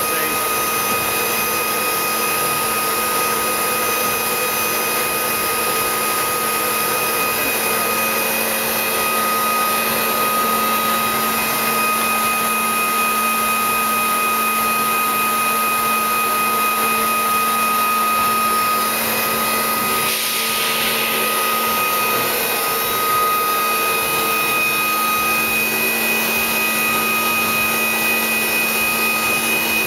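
Voumard Type 203 internal grinder running under power: a steady high-pitched whine from its high-frequency grinding spindle over a machine hum and hiss. A short rush of hiss comes about twenty seconds in.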